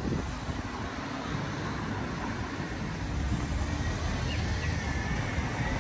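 Street ambience: a steady rumble of car traffic on a city street. About four seconds in, a faint wavering high tone comes in over it.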